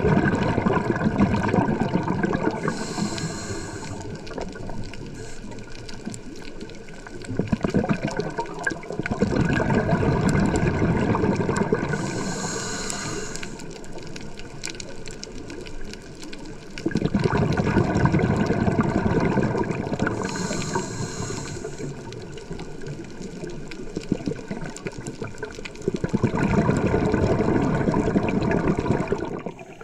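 Scuba diver breathing through a regulator underwater. A short hiss of the inhale comes roughly every nine seconds, and each breath is followed by a few seconds of exhaled bubbles rumbling and gurgling. The bubbles come four times, and the inhale hiss three times.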